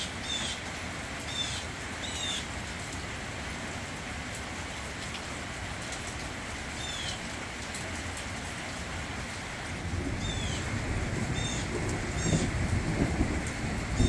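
Steady rain falling, with a bird giving short downward-sweeping chirps several times, in small clusters near the start and again in the last few seconds. A louder low rumble builds up from about ten seconds in.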